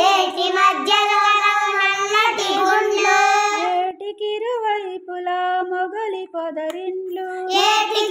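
A child singing a Telugu textbook song in a melodic, unaccompanied voice, with a softer stretch in the middle and the voice coming back strongly near the end.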